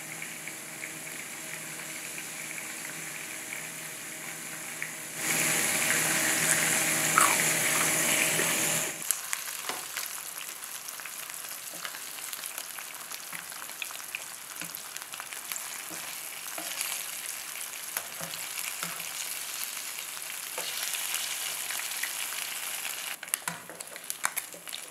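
Small fish (smelt) shallow-frying in hot oil in a frying pan: a steady sizzle full of small crackling pops, louder for a few seconds starting about five seconds in. A low hum sits under the sizzle for the first nine seconds or so.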